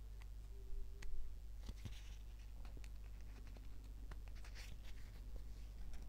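Faint rustling and crinkling of a tape-covered paper sticker handled and picked at with fingers while it is peeled from parchment backing, with a few small clicks, over a steady low hum.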